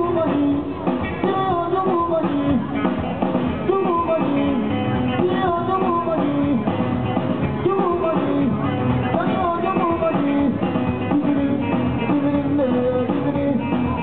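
Live band playing Malian desert blues-rock: electric guitar and drums under a singer's voice.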